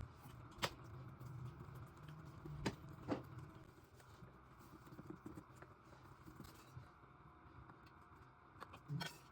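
Quiet room tone broken by a few light clicks and knocks: one just under a second in, two close together about three seconds in, and another small cluster near the end.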